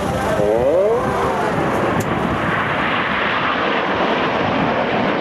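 Jet noise from the Red Arrows' nine BAE Hawk T1 jets (Rolls-Royce Adour turbofans) flying past in formation: a steady rushing sound that builds about two seconds in and holds. A voice over the loudspeaker is heard briefly at the start.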